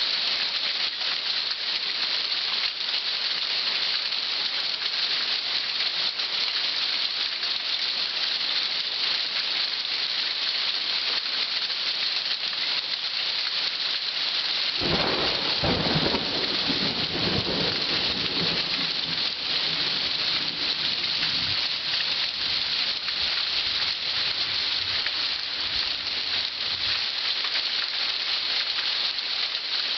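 Pea- to marble-sized hail falling hard: a dense, steady clatter of hailstones mixed with rain. About halfway through, a low rumble of thunder starts suddenly and fades away over several seconds.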